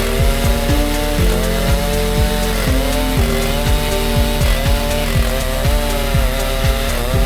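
Background music with a steady beat over a Stihl MS881 chainsaw running under load in a chainsaw mill, ripping lengthwise through an oak log. The engine's pitch dips and recovers repeatedly as the cut loads it.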